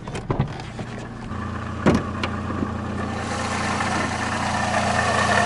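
VAZ 2110-family engine idling hot, heard under the open hood, with a steady hum from a bearing in the belt drive that has started humming again. A sharp knock comes about two seconds in, and the sound grows louder toward the end.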